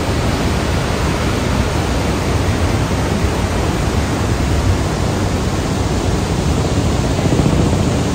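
Iguazú Falls' many cascades pouring into the gorge, heard as a loud, steady rush of falling water.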